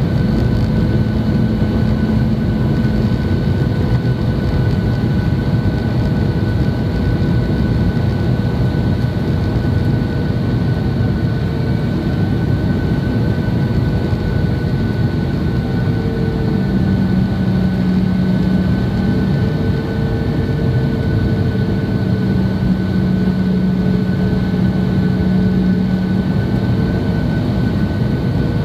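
Cabin noise inside a Boeing 737-800 on approach to land: the steady rush and drone of its CFM56 jet engines and airflow, with a few steady tones over it. A low engine tone comes and goes in the second half.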